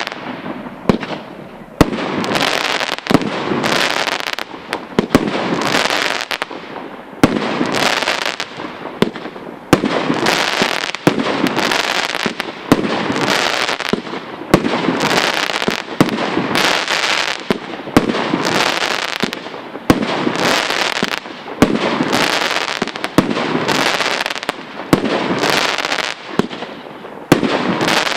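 Aerial firework shells bursting in quick succession, a sharp bang about once a second, each trailed by a long rush of noise.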